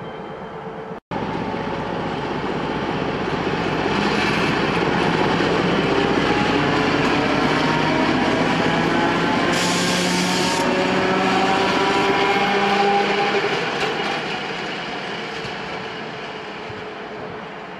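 Czech Railways class 754 diesel locomotive passing light engine. Its diesel engine drone grows louder as it draws level, with a brief hiss about ten seconds in, then fades as it moves away.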